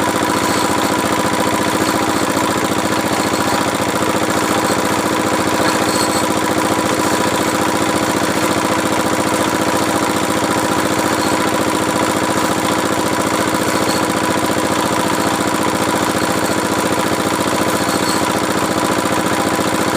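Engine of a well-drilling machine running steadily at a constant speed, with a fast even beat and no change in pace.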